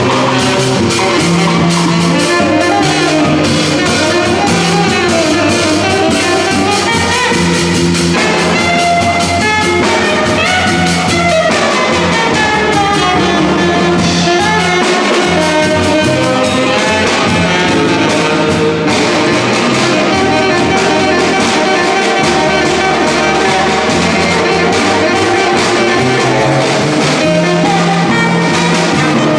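Live jazz band playing instrumentally: saxophones carrying gliding melody lines over a walking upright bass and a drum kit keeping steady time.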